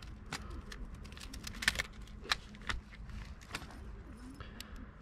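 Plastic-mesh crab-pot bait cage being closed and tied with line by hand: scattered light clicks and rustles of plastic and string, about a dozen irregular ticks.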